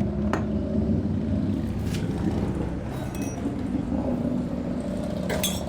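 A few sharp metallic clinks of tools and fork parts being handled, the loudest near the end, over a steady low machine hum.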